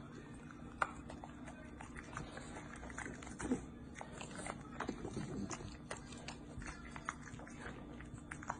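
Bulldog puppy licking and smacking at a tabletop, its tongue and mouth making a scatter of short smacks and clicks, one sharper click about a second in.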